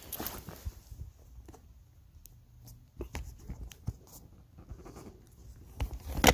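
Camera handling noise: scattered rustles, scrapes and light clicks, with a sharp knock near the end, the loudest sound.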